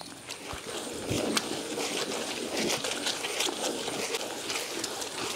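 Hand-turned stone grinder: the heavy rounded stone pestle is rolled in a stone mortar, crushing dry red chillies and grated coconut into masala. It makes a steady scraping, crunching noise with many small crackles, starting about a second in.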